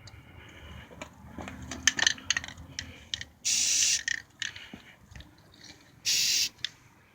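Aerosol can of self-etching primer spraying in two short hissing bursts, a little over half a second each, about three and a half and six seconds in. Before them come a run of sharp metallic clicks and rattles from the can being handled.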